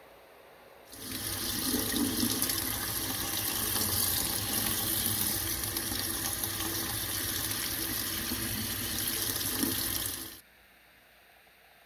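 Kitchen faucet running full into a stainless steel sink, the stream splashing over a freshly printed water-washable resin part still on the printer's build plate as uncured resin is rinsed off. The water comes on about a second in and cuts off suddenly near the end.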